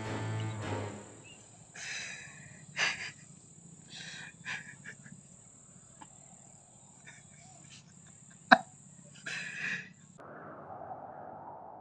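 A man crying: short broken sobs, sniffs and gasping breaths, with one sharp click, the loudest sound, a little past the middle.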